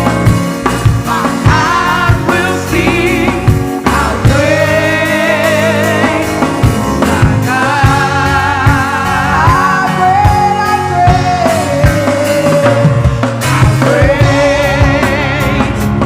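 Worship band music: a singer holds long notes with vibrato over bass and steady drum hits.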